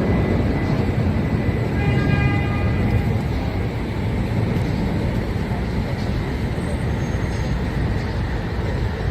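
Steady low rumble of vehicle road noise, with a short high-pitched tone about two seconds in.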